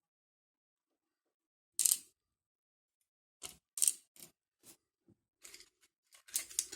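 Small metallic clicks and taps from handling a padlock and loose lock pins while pins are tried for fit. One sharper click comes about two seconds in, then a run of lighter, irregular clicks.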